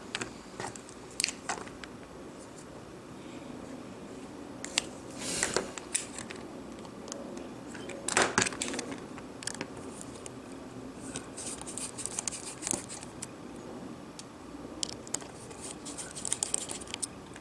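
Precision screwdriver and tweezers handled over an opened iPhone 6 on a work mat: irregular light clicks, taps and scrapes of small metal tools, with short scratchy bursts in the second half.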